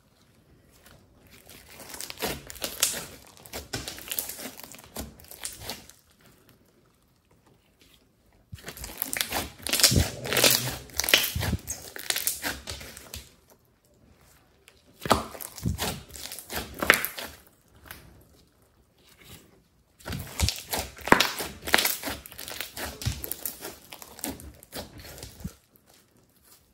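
Slime being stretched and squeezed by hand, giving dense crackling and sticky popping, in four bouts with short quiet pauses between them.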